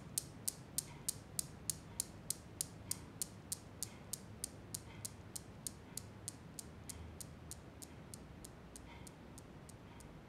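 The steel balls of a Newton's cradle clicking against each other, about three clicks a second, growing fainter as the swing dies down.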